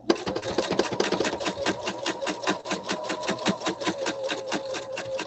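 Pfaff sewing machine starting up and stitching steadily during free-motion quilting: a fast, even run of needle clicks, about eight a second, over a steady motor hum.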